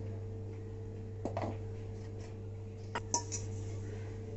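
A few light clinks and knocks of steel kitchenware against a stainless-steel plate as gram flour is tipped out, the loudest a quick pair with a short ring about three seconds in, over a steady low hum.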